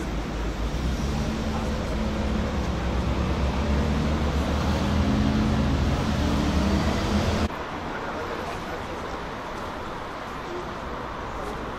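Road traffic: a motor vehicle's engine rumbling close by, growing a little louder, then cut off suddenly about seven and a half seconds in, leaving quieter steady street noise.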